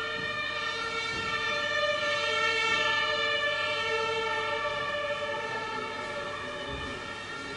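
A steady drone of several held tones sounding together, like a sustained chord or whine. It swells a little a few seconds in and eases slightly toward the end.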